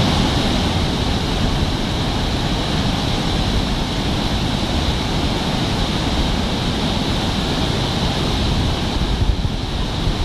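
Waterfall in spate: a heavy flow of muddy floodwater pouring over a wide rock ledge, a steady rushing noise without a break.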